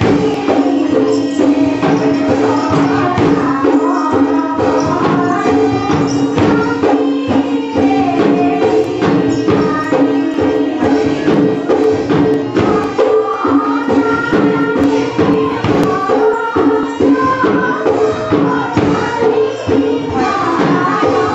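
Music: dense, rapid percussion strikes over a steady two-note drone, with a wavering melody line above.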